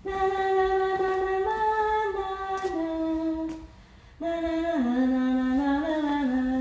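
A voice humming a slow, wordless melody of long held notes. It comes in two phrases with a short break about three and a half seconds in, and the second phrase steps lower.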